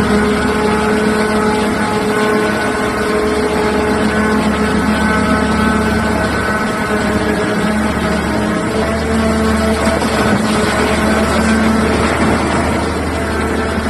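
Liebherr R9800 mining excavator's diesel engines running steadily under load, a loud continuous drone with higher tones that shift in pitch every few seconds as the machine works.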